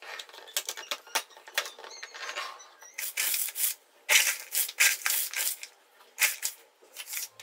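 A quick, irregular run of sharp clicks and taps with crinkling in between, as of hands handling small objects or packaging in a kitchen.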